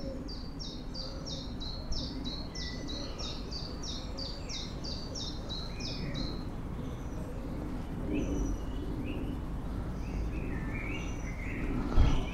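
A small songbird sings a long run of high, down-slurred notes, about three a second, then a few lower-pitched notes later on, over a steady low background noise. There is a brief low thump near the end.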